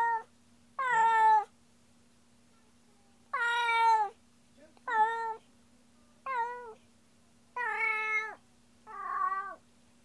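A cat meowing loudly and repeatedly, about seven drawn-out meows with a slightly falling pitch, spaced a second or two apart.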